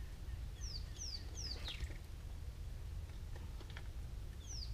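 A bird calling: three quick, high whistled notes, each falling in pitch, and then a longer falling note. The run comes about half a second in and again near the end, over a steady low rumble.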